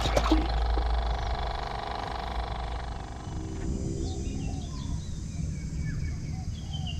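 Outdoor ambience: a steady droning hum fades out about three and a half seconds in, then birds give scattered short chirps that glide up and down.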